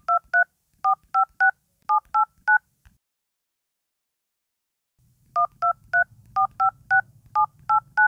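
Dial-pad keypad tones of a Samsung phone running One UI 7: short dual-tone DTMF beeps as the digits 1 to 9 are tapped in quick succession, in groups of three by keypad row, stepping up in pitch row by row. After a pause of about three seconds the same run of beeps starts again.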